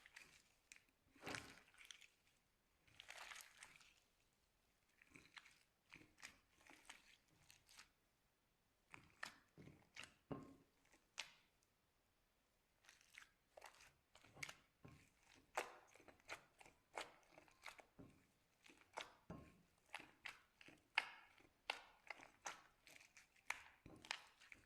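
Slime being worked by hand close to the microphone: many short, irregular crackly clicks and pops in clusters, with a pause about halfway through.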